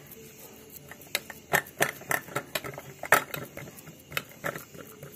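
A steel spoon pressing and smoothing barfi mixture flat in a steel pan, with irregular light clicks and taps of the spoon against the metal.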